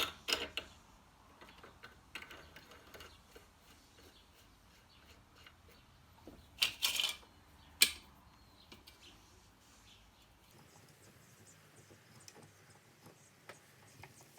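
Handling of small metal parts and tools at a workbench: scattered light clicks and clinks, with a louder knock right at the start, a short rattle about seven seconds in and a sharp click just after.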